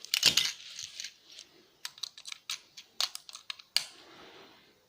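Sharp metallic clicks and clinks as a stuck part of a laptop hard drive is worked loose by hand. A loud cluster of clicks and scraping comes at the start, then scattered single clicks.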